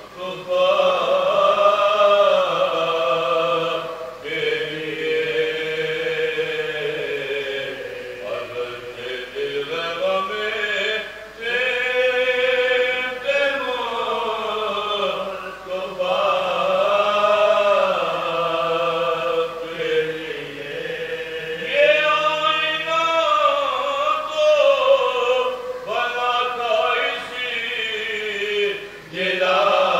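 Men's voices chanting a marsiya, an Urdu elegy, unaccompanied, several voices together in long, wavering held lines, with short breaks between phrases.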